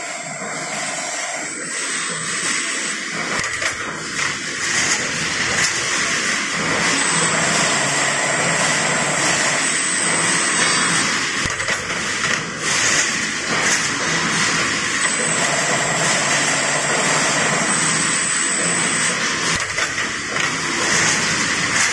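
Everen EE-CSA-500 continuous spring assembly machine running as it assembles mattress coil springs: a steady mechanical noise with a high tone that comes and goes about every eight seconds, three times.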